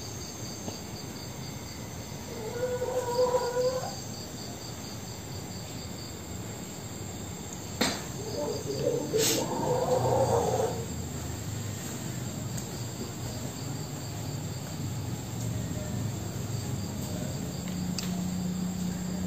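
Crickets chirping steadily at night. Twice, about three seconds in and again around nine to ten seconds in, a faint high-pitched crying voice rises over them, with a couple of sharp clicks around the second.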